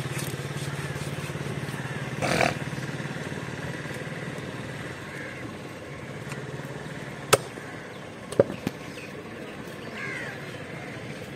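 Heavy cleaver chopping through fish flesh into a wooden chopping stump: a few sharp knocks about seven and eight seconds in. Under them runs a steady engine hum that fades after about the first half, and a harsh call comes about two seconds in.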